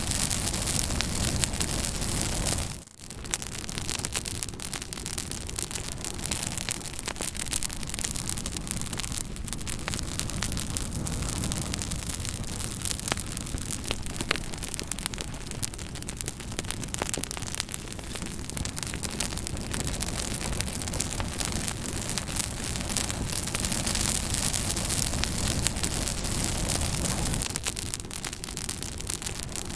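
Wood fire crackling: many small sharp pops and snaps over a steady hiss. The sound drops out briefly about three seconds in, then carries on.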